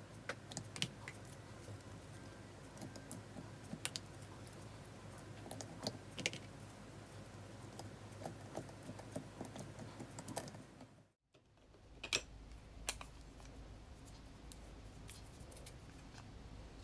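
Irregular light clicks and taps as plastic makeup compacts are handled and opened beside a glass dish. The sound briefly cuts out about eleven seconds in, and the clicks are sparser after it.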